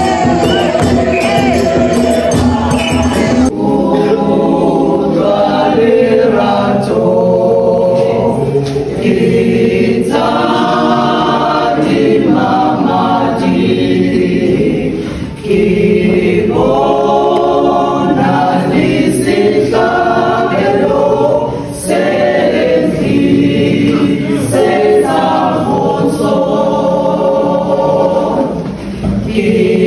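A small church choir, mostly women, singing a gospel hymn together without instruments, in long phrases with brief pauses between them. The first few seconds, before a sudden change, are a different, fuller passage of church singing.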